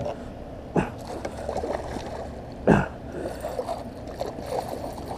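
A hooked striped bass thrashing at the surface beside a kayak: sudden splashes about a second in and, loudest, near three seconds in, with smaller splashing and gurgling water between.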